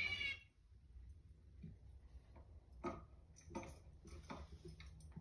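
Irregular light clicks and taps, roughly one every half second to a second, over a quiet background, after a louder sound cuts off about half a second in.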